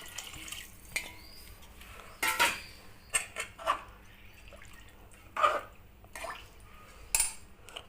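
Water poured by the tumbler-full into a pressure cooker of rice, in short splashes, with scattered clinks and knocks of a metal tumbler against the pot.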